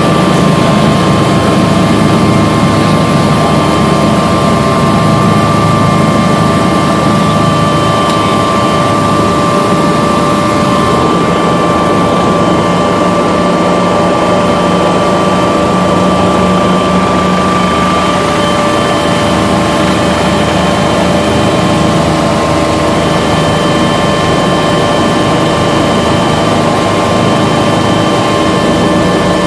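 Helicopter in flight heard from inside the cabin: the engine and rotors run steadily, with a constant high whine over a low rumble.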